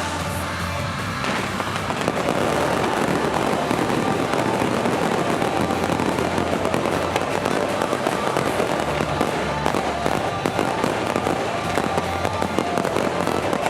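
Stadium fireworks display: rapid, dense crackling and popping of bursting fireworks that grows louder about a second and a half in, over background music.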